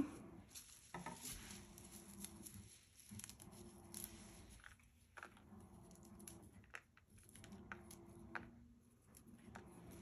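Faint small ticks and soft rustles of fingers picking apart flower petals and setting them down on a sheet of paper.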